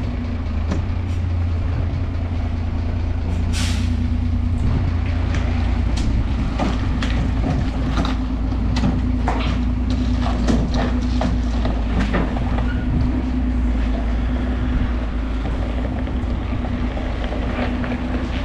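Heavy diesel truck engine running with a steady low rumble. A short hiss of air brakes comes about three and a half seconds in, and scattered clicks and knocks come in the middle.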